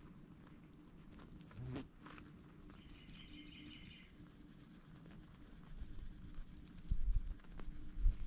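Outdoor ambience: faint, high insect chirping comes in pulses through the middle, over light rustling, with a few low thumps near the end.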